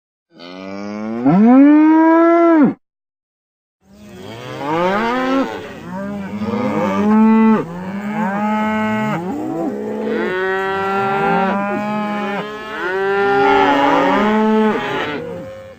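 Cattle mooing: one long moo that rises in pitch and cuts off abruptly, then after a second's pause a long run of many shorter, overlapping moos from several animals.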